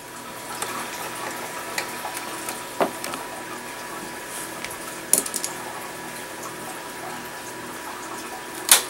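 A few short, sharp plastic clicks, the loudest near the end, as a pick pokes into the locking notches of an Xbox 360's plastic side plate, over a steady hiss.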